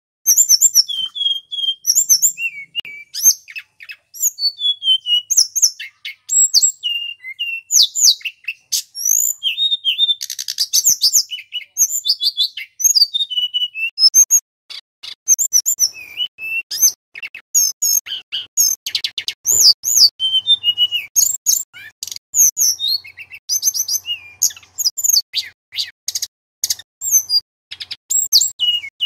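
Male tledekan gunung, a blue-and-orange Cyornis blue flycatcher, singing a loud, varied song of clear whistled phrases mixed with rapid high twittering notes. It strikes up right at the start and runs on with barely a pause.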